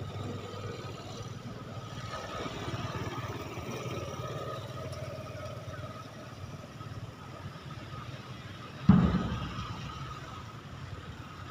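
Steady low background rumble with a faint, even high-pitched tone. One sudden dull thump about nine seconds in is the loudest sound, fading out over about a second.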